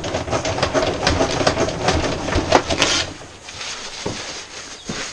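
Paper towel being pulled from a wall-mounted roll towel dispenser, its feed mechanism whirring and clicking rapidly for about three seconds, followed by a few footsteps on wooden decking.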